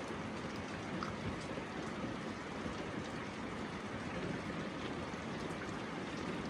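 Steady rainfall, an even hiss of rain with scattered individual drops ticking.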